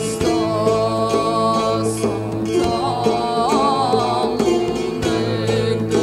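Traditional folk music played by a small band: a long-necked plucked lute over a steady low drone, with a voice singing a wavering, ornamented melody.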